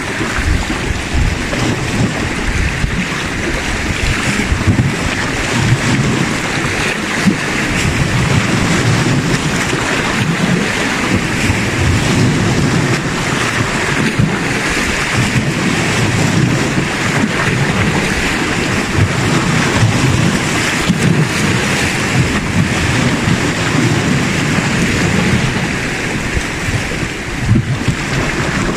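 Sea waves washing against shoreline rocks, with wind buffeting the microphone in a steady low rumble.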